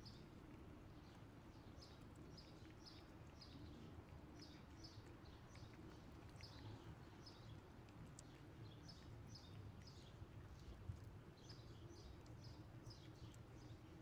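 Small birds chirping faintly and repeatedly, short high chirps coming a few at a time, over a low steady outdoor rumble; a single soft knock late on.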